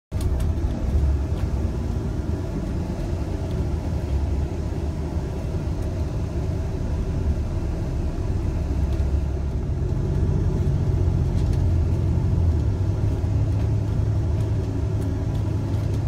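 Steady low rumble of a moving road vehicle, engine and tyre noise, with a low hum that grows stronger about ten seconds in.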